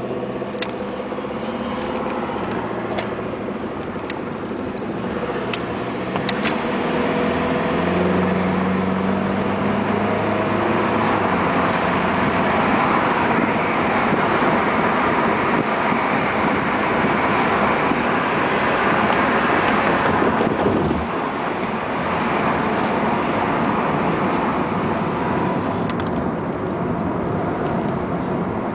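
1994 Honda Accord EX's 2.2-litre VTEC four-cylinder engine running with a knock. Its pitch rises a few seconds in, it holds at higher revs with a loud roar, and it drops back suddenly about three-quarters of the way through.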